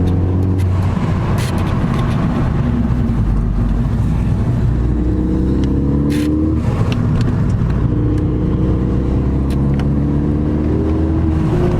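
Car engine and road noise heard from inside the cabin while driving. The engine note rises a few times as the car accelerates, with a few light knocks.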